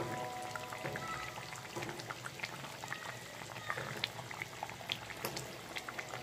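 Fish curry with tomatoes simmering in a pan, the sauce bubbling with many small irregular pops and a soft sizzle.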